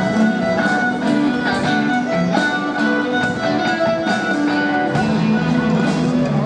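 A live rock band playing through amplifiers: a bowed violin carrying held notes over electric guitar, with regular drum hits.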